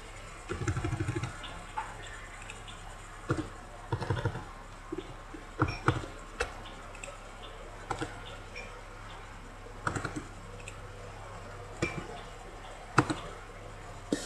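Scattered clicks from a computer mouse and keyboard: single clicks and a few short quick runs of keystrokes. A low steady electrical hum runs underneath.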